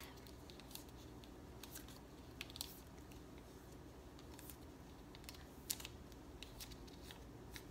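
Quiet room tone with a scattered handful of faint clicks and crinkles: a Veet wax strip being pressed and rubbed down onto an armpit before it is pulled off.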